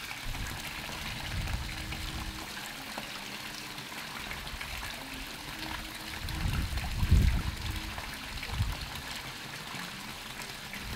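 Pool water feature spilling a sheet of water into the pool: a steady trickling splash. A low rumble rises over it about seven seconds in.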